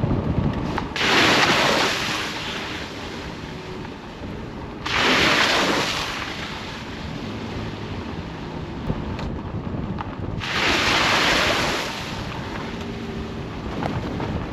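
Car driving up a rough mountain road: a steady low rumble, with three loud rushing hiss surges a few seconds apart that each start suddenly and fade away.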